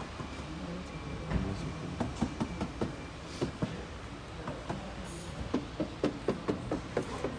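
A series of sharp knocks on a car's front wheel arch and fender, scattered at first and then coming steadily at about two or three a second in the second half, over a low steady hum.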